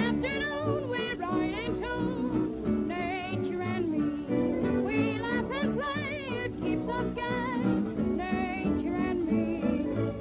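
1930s cartoon soundtrack music: a plucked string accompaniment under a high, warbling melody full of quick trills.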